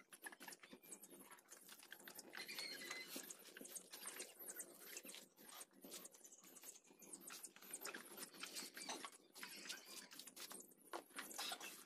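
Faint, irregular clicks, rubbing and splashes of a small motorcycle being hand-washed with soapy water.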